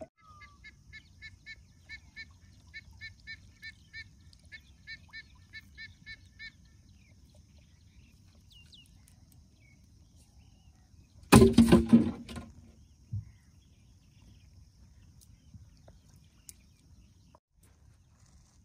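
A bird calling over and over in short pitched notes, about two a second, for the first six seconds or so. About eleven seconds in comes a loud clattering burst of knocks lasting about a second, with a single knock a moment later.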